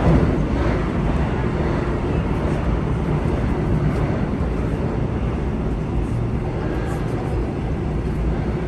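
Korail Class 351000 electric multiple unit running between stations: a steady rumble of wheels on rail and running gear.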